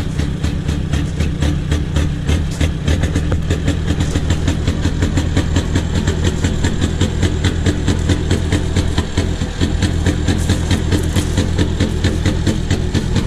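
Car diesel engine idling steadily, with a fast, even clatter.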